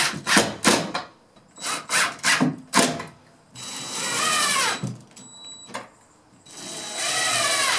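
Several sharp knocks, then a cordless drill run twice driving screws into the wooden wall framing, its motor pitch sagging as each screw bites.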